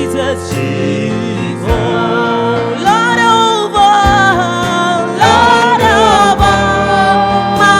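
Gospel worship song: sung melody over instrumental accompaniment with a regular low beat.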